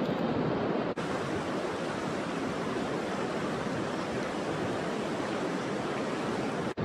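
Steady rushing of river water flowing past, a constant even noise with no breaks except a brief dropout about a second in and another near the end.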